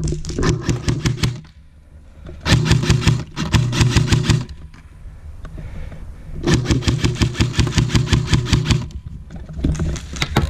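Airsoft rifle firing full-auto bursts: a fast, even rattle of shots over a mechanical buzz, four bursts of about two seconds each with short pauses between.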